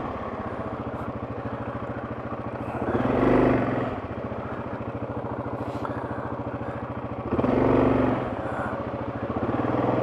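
Yamaha Kodiak 700 quad bike's single-cylinder four-stroke engine running steadily while riding, swelling louder briefly twice, around three and eight seconds in.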